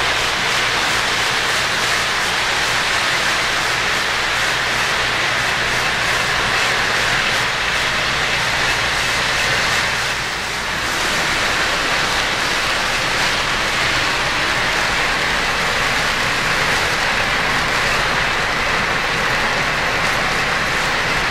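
O-gauge model freight train running on three-rail track: a steady rolling rattle of metal wheels on the rails over a low motor hum, dipping briefly about ten seconds in.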